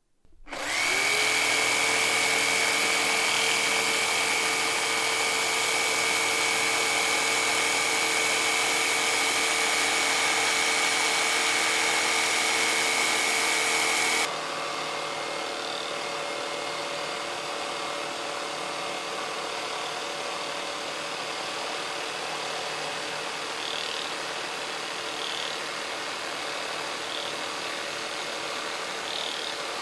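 Bosch 18-volt cordless jigsaw starting up with a quick rising whine, then running steadily as its reciprocating blade cuts through a wooden board. About halfway through, the sound drops suddenly to a quieter, steady run without the high whine.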